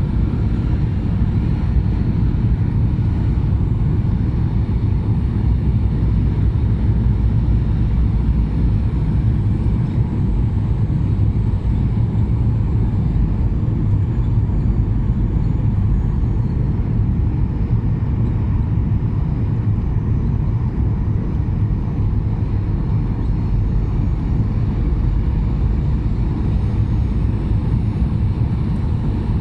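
Steady airliner cabin noise: the low rumble of the engines and the rush of air around the fuselage, heard from inside the passenger cabin.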